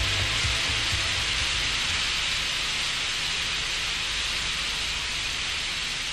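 A stream of loose salt pouring from a conveyor discharge chute onto a salt pile, making a steady rain-like hiss.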